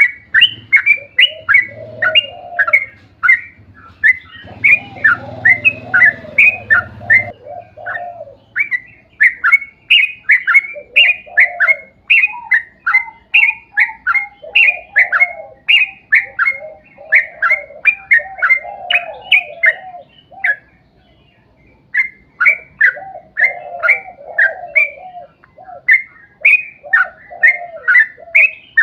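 Yellow-vented bulbul (trucuk) song: a long, rapid series of short, bright falling notes, about two to three a second, over a lower bubbling warble that comes and goes. The song breaks off briefly about two-thirds of the way through.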